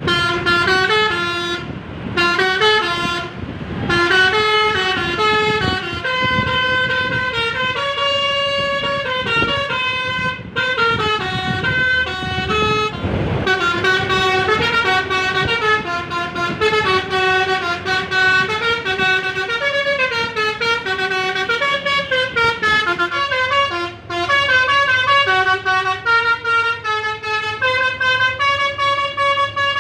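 Bus's Basuri telolet multi-tone horn playing a tune, its notes stepping up and down, with short breaks between phrases. A couple of rushes of noise come under it near the start and about halfway.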